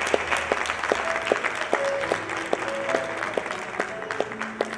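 Audience applauding, the clapping thinning out near the end, with music playing underneath.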